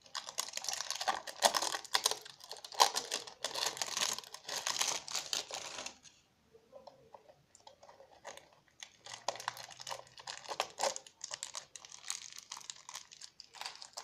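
Wrapping of an L.O.L. Surprise toy ball crinkling and tearing as a layer is peeled open, in dense, quick crackles; it drops off for about three seconds past the middle, then the crackling starts again.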